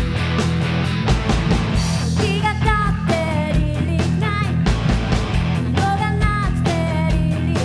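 Live rock band playing: two electric guitars, electric bass and drum kit, with a woman's lead vocal coming in about two seconds in.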